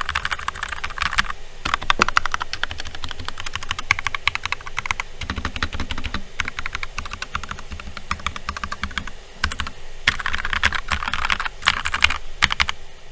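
Fast typing on a Glorious GMMK tenkeyless mechanical keyboard fitted with C3 Tangerine linear switches, not yet lubed or filmed, under OEM-profile keycaps. A dense run of key clacks with a couple of short pauses, stopping just before the end.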